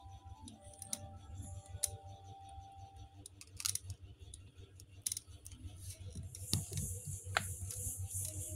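Pregnant tabby cat hissing defensively, longest and strongest near the end, among scattered clicks and handling noise.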